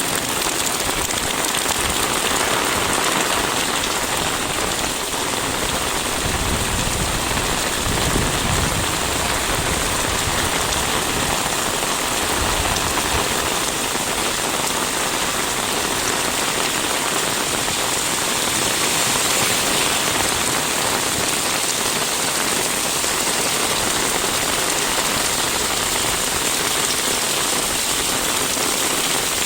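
Steady rain falling, an even hiss with patter of drops. A low rumble swells briefly about a quarter of the way in.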